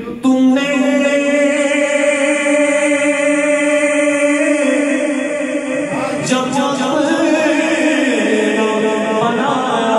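Male naat reciter singing into a handheld microphone, drawing out long held notes, the first lasting about four seconds, with wavering turns between notes.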